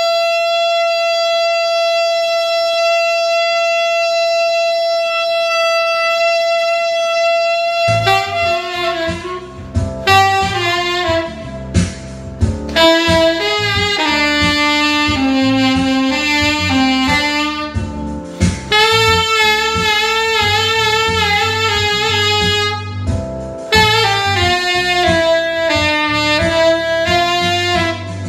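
Yamaha tenor saxophone with a Theo Wanne Durga mouthpiece holding one long note for about eight seconds, then playing a swinging jazz melody over a backing track of bass, piano and drums.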